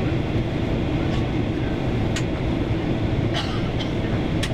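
Steady in-flight cabin noise of a Boeing 737-800, the low roar of its CFM56 engines and the air rushing past the fuselage, with a few faint clicks.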